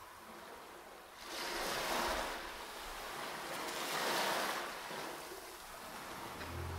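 Ocean surf washing in and out in slow swells, heard within an ambient instrumental track. A low sustained note comes in near the end.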